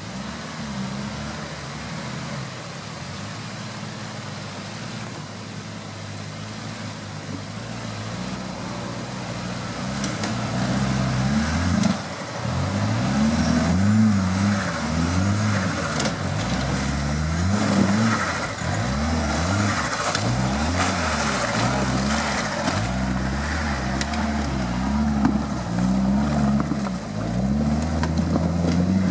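Off-road vehicle's engine running, steady at first. From about ten seconds in it is louder and revs up and down again and again, as under load on rough terrain.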